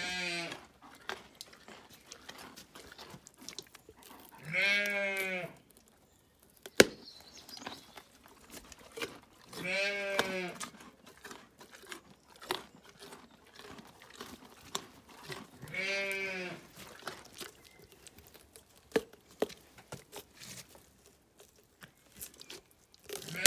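A sheep bleating in long calls of about a second each, repeating every five or six seconds. A single sharp click about seven seconds in, with faint scattered clicks and rustling between the calls.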